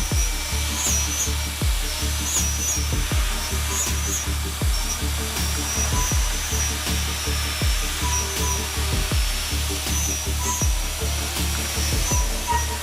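Background electronic music with a steady kick-drum beat.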